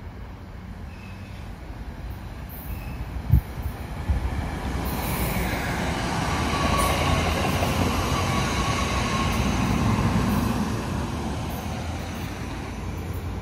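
Commuter train passing on the tracks at speed: the rumble and wheel noise swell from about four seconds in, are loudest mid-way as the cars go by, then ease off as it pulls away. A single sharp knock comes a little over three seconds in.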